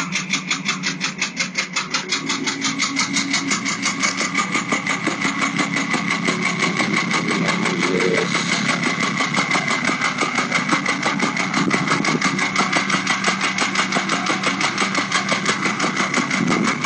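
Warm Porsche 996 911 Carrera 4's water-cooled 3.6-litre flat-six idling with a fast, regular knock several times a second. It is the sign of internal engine failure that called for a short-block replacement.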